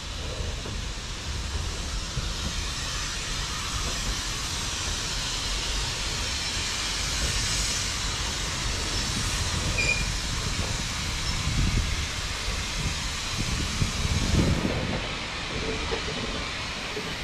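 BR Standard Class 9F steam locomotive 92203 'Black Prince' moving slowly tender-first past, with loud steady steam hissing over the low rumble of the engine and wheels. The hiss cuts off fairly suddenly near the end, after two heavier low surges.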